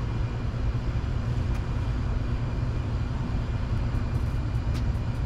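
A steady low machine hum of the workshop, with a few light metallic clicks near the end as small bolts and washers are handled on the bench.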